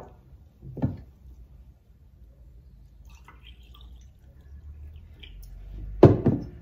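Water poured from a glass bottle into a small drinking glass, a faint trickle in the middle. There is a knock about a second in, and a louder double knock near the end as the glass bottle is set back down on the wooden table.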